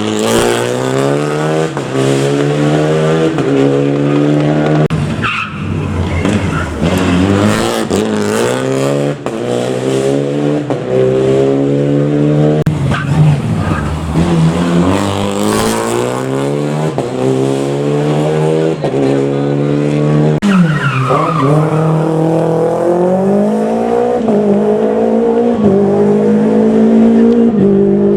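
Rally car engine working hard, the pitch climbing again and again and dropping back at each gear change, with a deeper drop and climb back up twice, about five seconds in and again about twenty seconds in.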